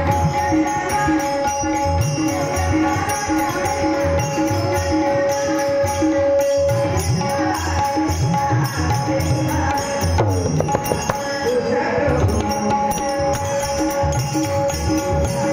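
Instrumental opening of a Marathi devotional song: tabla playing a steady rhythm under a sustained drone, with jingling percussion keeping time.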